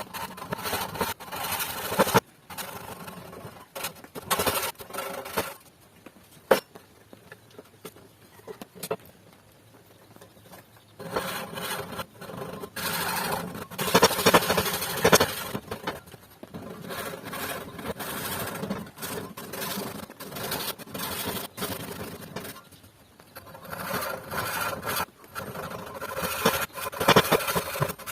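Japanese hand saw cutting wood by hand: bouts of repeated rasping strokes, with a quieter pause about a third of the way in broken by a few sharp knocks.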